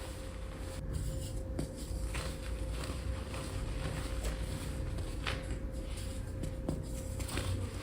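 Gym chalk being crushed and crumbled by hand, a run of irregular small crunches and scrapes, over a steady low hum.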